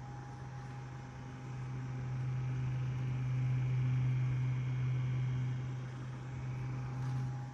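A small electric device humming steadily with a low buzz, growing louder through the middle and easing again near the end: the abnormal noise that starts when it is turned from sideways to facing down.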